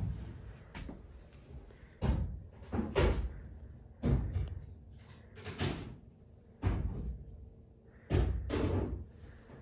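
Footsteps on a bare wooden attic floor: dull thuds at an uneven walking pace, roughly one a second, some in quick pairs.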